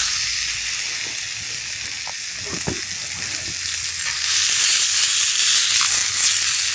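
Chicken breast frying in a hot pan: a steady sizzle that grows louder about four seconds in.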